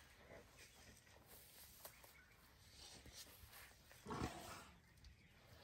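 Faint rustling and tearing of dry grass as African elephants feed, then one short, low elephant vocal sound about four seconds in, the loudest thing here.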